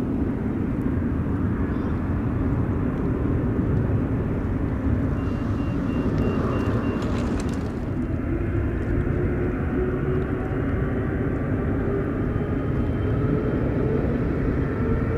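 Boeing 777-300ER's twin GE90-115B turbofan engines heard from afar as a steady low rumble. From about nine seconds in, a slowly rising whine joins it as the engines begin to spool up for the takeoff roll.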